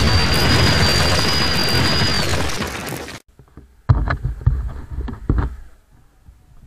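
Loud rushing wind noise buffeting the microphone of a moving motorbike, with a steady high whistle running through it. It cuts off suddenly about three seconds in, followed by a few soft knocks.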